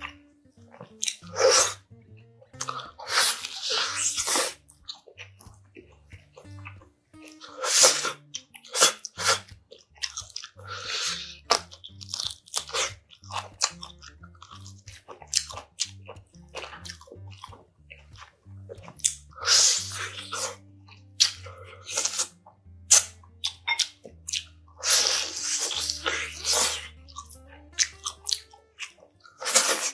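Close-miked eating of braised spicy pork backbone: biting and chewing meat off the bones, in loud, irregular bursts of crunching and mouth sounds. Soft background music with low notes plays underneath.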